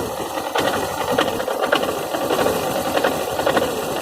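Suzuki GS 500E's air-cooled parallel-twin engine running with a rapid metallic knocking rattle, which the owner suspects comes from a loose clutch basket or the cam chain tensioner.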